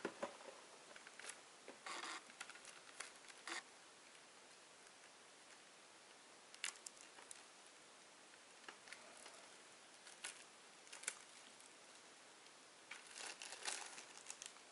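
Faint crinkling of plastic shrink-wrap and light clicks as a wrapped CD jewel case is handled, in short scattered bursts with a denser run of rustling near the end.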